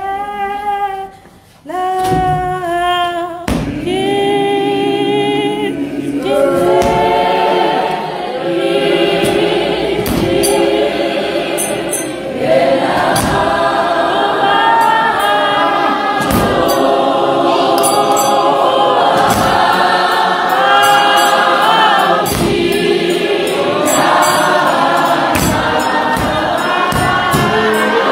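Church congregation singing a gospel praise-and-worship song. A single voice sings the opening line, and the whole congregation joins in about three seconds in, singing together from then on.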